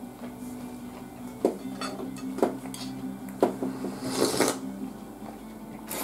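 Eating sounds: chopsticks clicking against a lacquer soup bowl a few times, then a slurping sip of miso soup about four seconds in, with more clicks near the end.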